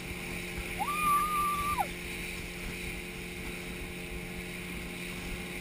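Steady drone of the speedboat towing a banana boat, mixed with rushing water from the wake. About a second in, someone lets out one long, high, held cry lasting about a second.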